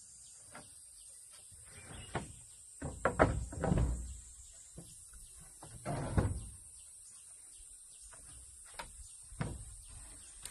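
Wooden planks knocking and thudding as they are handled and set in place, in scattered single knocks with a busier cluster of thuds about three to four seconds in and another about six seconds in.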